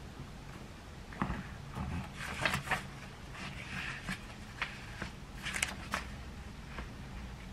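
Paper pages of a hardback planner being turned and flipped by hand: a series of short, crisp rustles and flicks, over a low steady hum.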